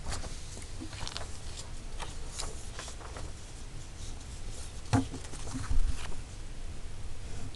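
Sheets of paper rustling and sliding as workbook pages are handled on a wooden desk, with scattered small scratches and clicks, a sharp knock about five seconds in and a heavier thud just before six seconds.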